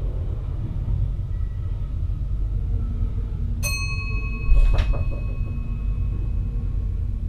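Steady low running rumble inside the cab of a VIRM double-deck electric train. A little under four seconds in, a single ding rings out and slowly fades, and about a second later comes a brief thump, the loudest sound here.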